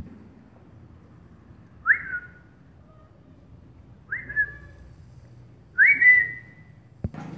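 A person whistling three short calls about two seconds apart to call a dog, each a quick upward sweep into a brief held note. A sharp click comes near the end.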